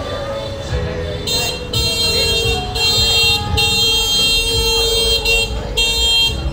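Motorbike horn honking in a run of long and short blasts, starting about a second in and stopping near the end, over busy street noise.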